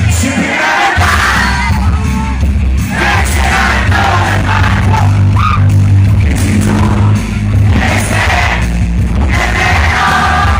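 Live amplified pop concert heard from within the audience: the band plays with heavy bass under a singer's voice, and the crowd shouts along.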